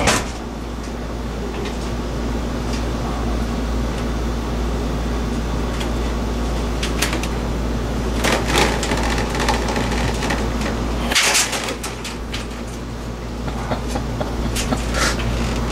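Steady low hum, with a few short knocks and rustles scattered through it.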